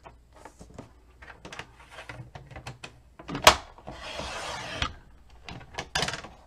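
Cardstock rustles as it is shifted into place on a score-and-cut board. About three and a half seconds in, the board's hinged trimmer rail shuts with one sharp click, and its blade is drawn along, slicing through the cardstock with a hiss lasting about a second. Another short rasp follows near the end.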